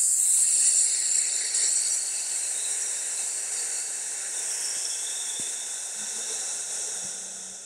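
A man's long, slow, hissed 'ssss' exhalation: the lung-cleansing healing sound of the Liu Zi Jue (Six Healing Sounds) qigong set. The hiss fades gradually and dies away near the end.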